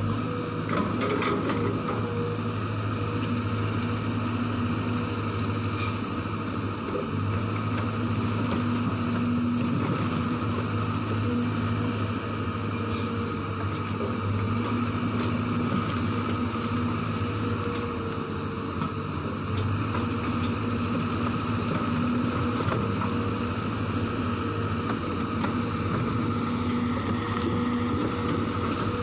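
Sumitomo hydraulic excavator's diesel engine running steadily under load while it digs and swings, a constant drone. A few brief knocks about a second in.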